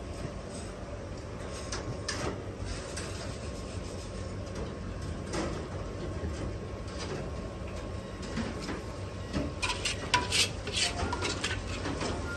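Perforated metal skimmer clinking and scraping against a wok and a ceramic plate while fried chicken and fried garlic are dished out. There are scattered clinks, with a cluster of sharper ones near the end, over a steady low hum.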